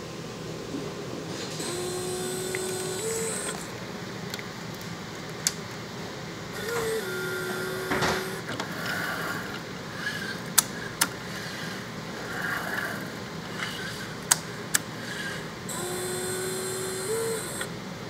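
Biotage Robot Sixty vial-handling robot's motors driving the arm in three short moves, each a steady whine that steps up in pitch just before it stops, with several sharp mechanical clicks between the moves. The synthesizer's fan hums steadily underneath.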